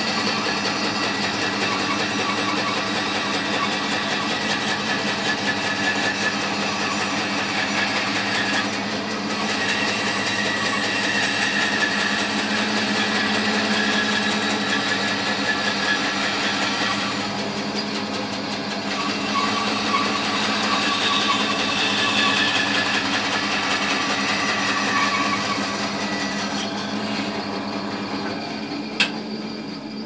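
Woodworking bandsaw running steadily as its blade cuts through a wooden block, taking the bottom off a stick blank. A single sharp knock about a second before the end.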